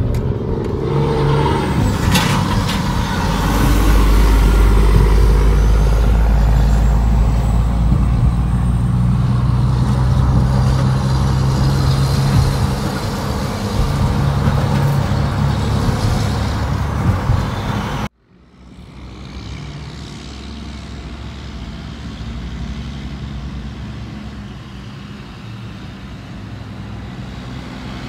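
Semi trucks' diesel engines running alongside a moving car, a deep steady rumble over road and wind noise heard from inside the cabin. After an abrupt cut about 18 seconds in, quieter outdoor sound of a semi idling and pulling in at a distance.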